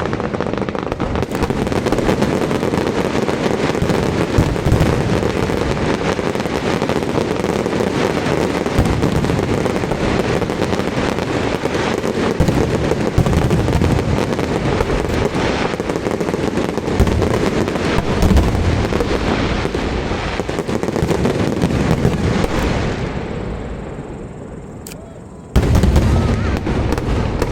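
Fireworks display: a dense, continuous barrage of bursting shells and crackle. It fades away, then a fresh loud barrage starts abruptly near the end.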